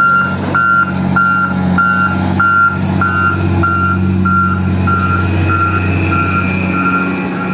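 A motor grader's diesel engine running steadily while its reversing alarm beeps repeatedly, a little under two beeps a second. The beeps grow fainter in the second half.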